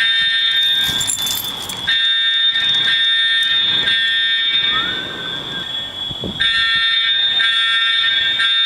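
Apartment building fire alarms sounding. A buzzy alarm tone comes in blasts of about three seconds with gaps of about a second and a half, over a steady high-pitched tone from another alarm that never stops.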